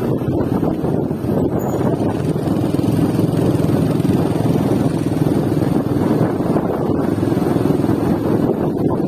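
A motor vehicle running steadily, a continuous low engine drone.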